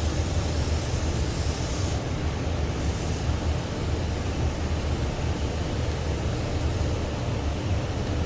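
Spray gun hissing as primer surfacer is sprayed to build a crimped texture, the hiss cutting off about two seconds in, over a steady low machine rumble.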